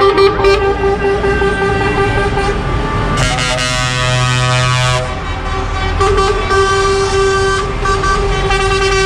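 Lorry tractor units passing, sounding their air horns over the run of their diesel engines. A long held horn tone is broken about three seconds in by a louder, deeper horn blast lasting about two seconds.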